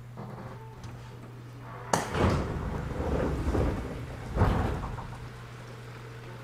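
Passenger doors of a JR 211 series 3000 electric train car opening at a station stop: a sharp thud about two seconds in, a rush of noise as the doors slide, and a second thump a couple of seconds later. A steady low electrical hum from the car runs underneath.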